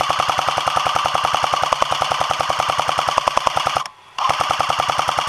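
A&K M249 airsoft electric gun firing on full auto, a fast, even rattle of shots in two long bursts with a short break about four seconds in.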